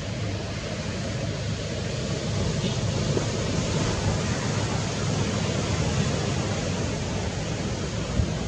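Wind on the microphone: a steady rushing hiss with a gusty, flickering rumble underneath.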